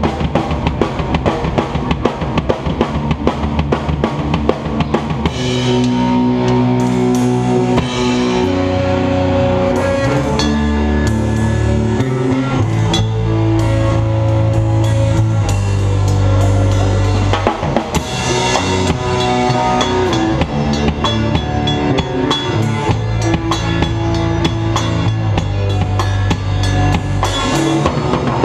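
Rock music with a full drum kit: drums and cymbals alone for about the first five seconds, then bass and sustained chords come in over the beat.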